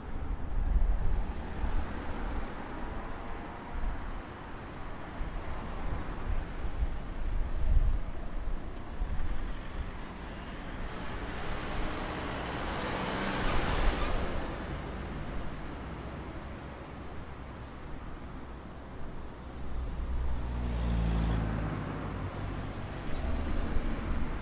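City street traffic: a steady wash of passing cars with a low engine rumble underneath. About halfway through one vehicle passes close, rising and falling. Later a heavier engine hums low for a couple of seconds.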